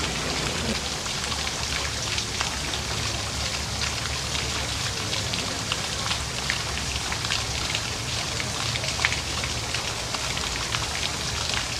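Steady patter of falling water drops, with many small scattered ticks over a low hum.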